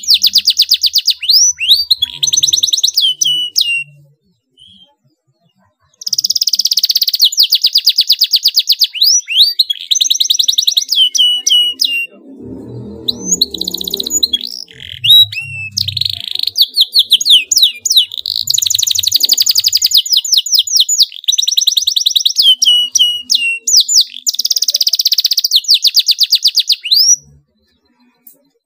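Domestic canary singing in long, fast, tightly packed rolls of rapidly repeated notes and quick sweeps, broken by short pauses, the full excited song canary keepers call gacor.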